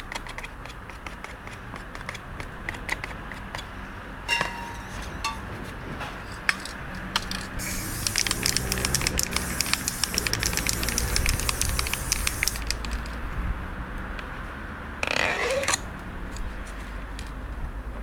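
Aerosol spray-paint can spraying in one long hiss of about five seconds, starting about halfway in, followed by a shorter spray burst near the end. Small clicks and crackles are scattered throughout.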